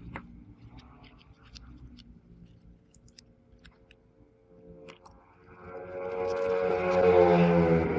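Automatic sliding gate's electric motor running with a steady hum, swelling into a louder many-toned drone from about five and a half seconds in.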